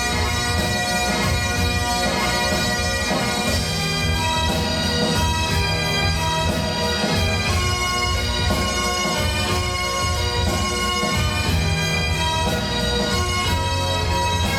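Great Highland bagpipes playing a march, the chanter melody sounding over the steady drones.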